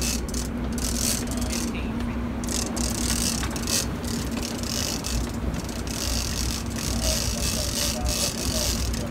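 Sportfishing boat's engine running with a steady drone, under rushing water and wind, while a big-game reel is cranked with a mechanical clicking during a wahoo fight.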